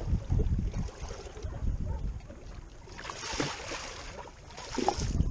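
Wind buffeting the microphone over water sloshing against the side of a small boat, with two louder splashy washes about three and five seconds in.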